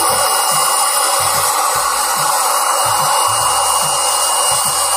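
Electric air pump inflating an inflatable pool through its valve: a steady rush of blown air with a thin high motor whine.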